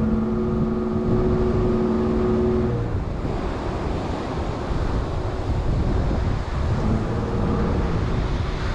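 Chevrolet Colorado ZR2 Bison pickup driving on soft beach sand: a steady engine drone that drops away a little under three seconds in. A rushing noise of wind on the microphone and surf carries on after it.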